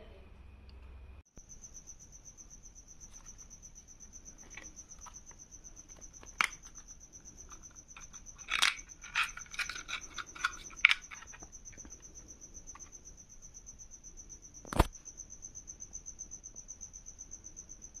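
Handling noise while the packed parts and remote are unboxed: scattered sharp clicks and taps, most of them in a cluster around the middle and one more a few seconds later. A steady high-pitched pulsing tone runs under them from about a second in.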